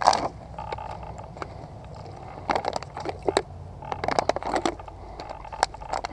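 Close handling noise of tactical gear being adjusted: a sharp knock at the start, then irregular bursts of rustling fabric, clicks and scrapes from vest straps and pouches.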